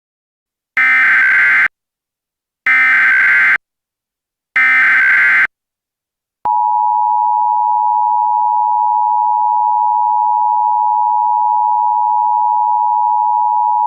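Emergency Alert System tones: three one-second bursts of the SAME header's digital data, which code the alert, then about six seconds in the steady two-tone EAS attention signal starts and holds, announcing that an emergency message follows.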